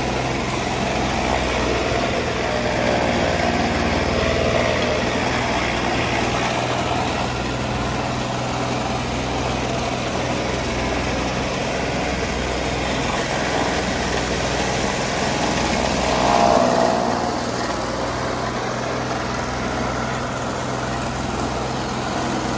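Chaff cutter running steadily with a constant motor hum, with a brief louder swell about sixteen seconds in.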